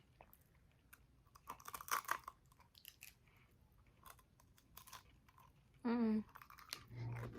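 Close chewing of a frozen ice cream bar with a cereal-like coating: scattered crisp crunches and clicks, clustered about two seconds in and again around four to five seconds.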